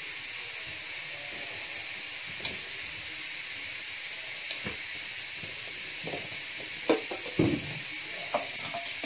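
Hands rubbing and tossing oiled couscous grains in a ceramic bowl, with a few soft knocks mostly in the second half, over a steady hiss.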